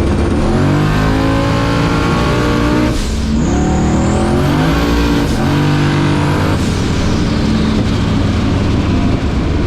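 Race car engine at full throttle under hard acceleration, its pitch climbing and dropping back at each of about three gear changes.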